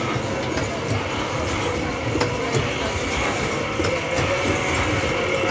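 A carousel running: a steady mechanical rumble with an occasional click.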